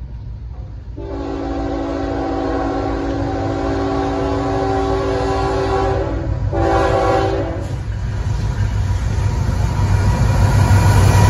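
Air horn of a CSX GE ET44AH diesel locomotive leading an intermodal train: a long chord blast of about five seconds, then a short one. After the horn, the low rumble of the approaching locomotive grows steadily louder.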